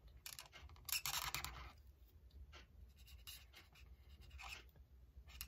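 Faint scratchy strokes of an alcohol-ink marker (Stampin' Blends) tip drawn across cardstock while colouring. The loudest stroke comes about a second in, with lighter, shorter strokes after it.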